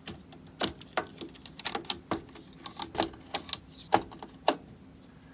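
A run of about a dozen sharp, irregular clicks and taps as parts are fitted into a PC motherboard, most likely memory sticks going into their slots.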